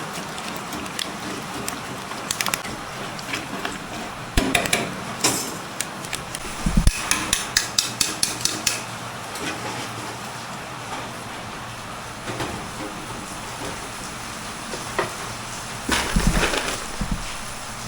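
Pork skins frying in hot oil with a steady sizzle. A metal utensil clanks and clinks against the pan, in a quick run about seven seconds in and again near the end.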